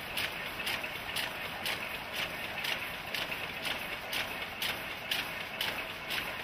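Schiffli embroidery machine running, with an even clack about twice a second over a steady mechanical hum.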